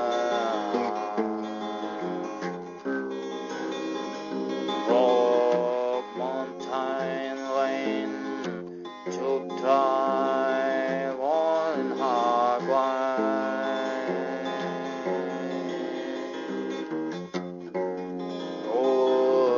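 Music: acoustic guitar playing, with a voice singing a melody that slides between notes.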